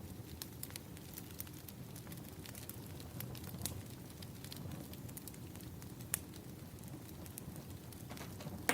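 Wood fire crackling: a steady low rumble of burning firewood with scattered sharp snaps and pops, two of them louder, about six seconds in and at the very end.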